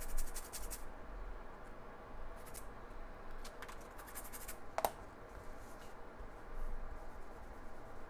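Scattered small clicks and scrapes of a metal reballing stencil and tweezers being handled on the bench, with one sharper tick about five seconds in, over a faint steady background hum.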